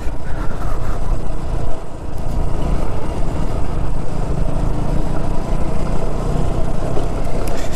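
Onboard sound of a motorcycle being ridden at a steady pace: the engine runs evenly under a heavy, constant low rumble of wind and road noise on the bike-mounted microphone.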